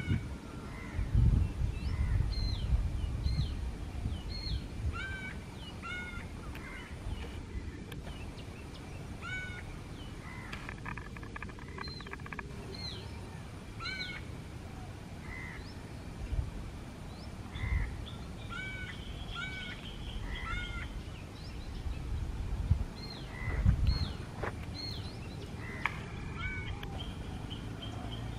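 Birds chirping outdoors: many short, high, hooked notes scattered throughout, with a rapid trill about eleven seconds in. Underneath is a low rumble that swells in gusts.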